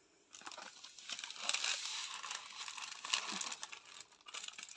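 Crinkling and rustling of a rolled diamond painting canvas as it is unrolled and pressed flat by hand, starting about a third of a second in.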